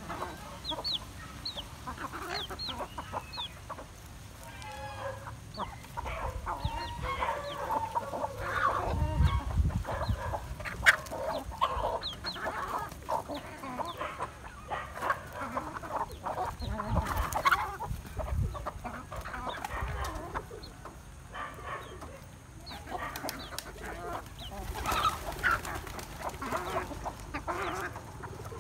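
A flock of free-range chickens clucking and calling continuously as they feed, with short high peeps in the first few seconds. There are brief low rumbles now and then and a sharp click about eleven seconds in.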